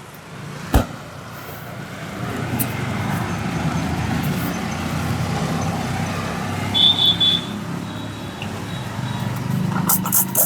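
Steady rumble of road traffic, with a sharp click near the start and a short burst of high beeps about seven seconds in. Near the end, quick rhythmic slaps of a hand head massage begin, about three a second.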